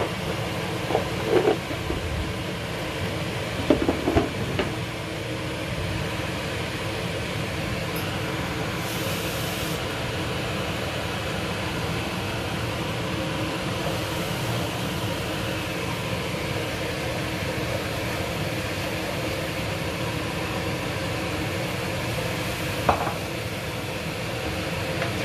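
Onions and ground spices sizzling steadily in a non-stick frying pan. A wooden spoon knocks and scrapes against the pan a few times in the first few seconds and once near the end.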